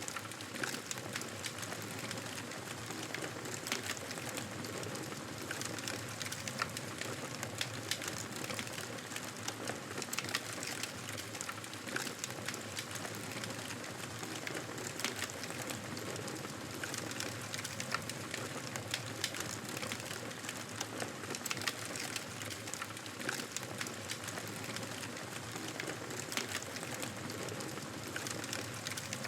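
Wood campfire burning: a steady crackling hiss with frequent sharp snaps and pops.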